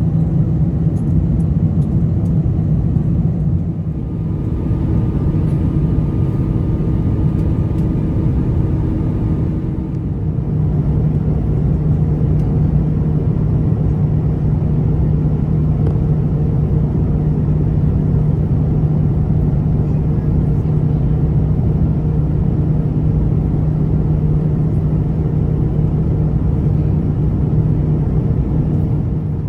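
Steady rumble of an Airbus A350-900's Rolls-Royce Trent XWB engines and airflow heard inside the passenger cabin, with a low engine hum that shifts slightly in pitch about 10 seconds in.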